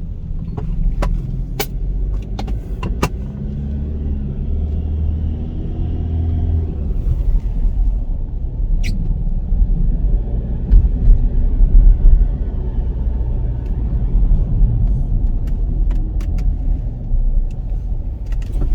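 Car driving: a steady low engine and road rumble, with a few sharp knocks and rattles in the first few seconds and again now and then.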